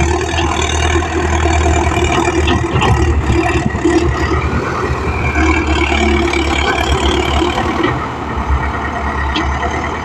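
Indo Farm tractor's diesel engine running steadily under load as its front loader-dozer blade pushes soil along a dirt track.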